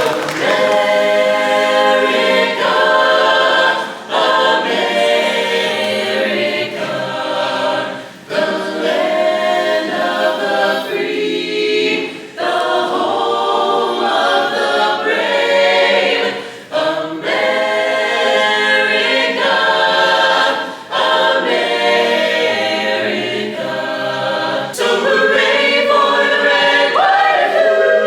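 A cappella vocal ensemble singing in full harmony, phrase after phrase with brief breaths between.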